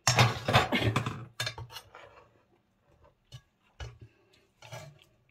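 Carving knife, fork and serving spoon scraping and clinking against an enamel roasting pan as roast duck is cut and a portion lifted out: a dense scraping in the first second, then a few separate clinks.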